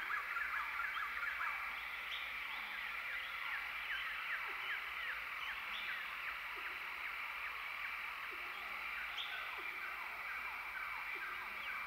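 Ambient chorus of wild animal calls: many overlapping short chirps, several a second, most sweeping quickly down in pitch, over a steady high drone.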